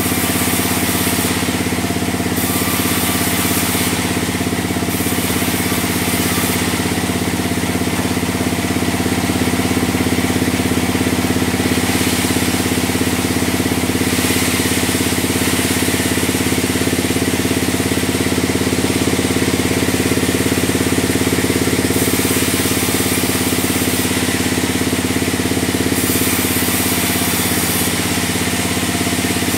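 Sawmill band saw running steadily with a constant machine hum, while a hiss from the blade cutting through timber rises and falls every few seconds as slabs are fed through.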